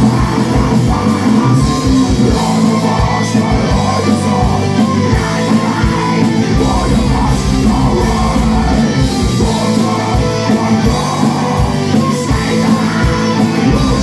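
Live heavy metal band playing loud, with distorted electric guitars, drums and vocals, and a flute played over the band.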